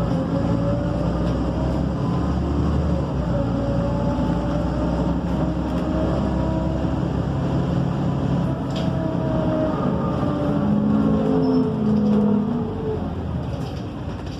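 MAN Lion's City city bus diesel engine and drivetrain heard from inside the passenger cabin while driving, its pitch drifting up and down with road speed. It grows briefly louder around ten to twelve seconds in.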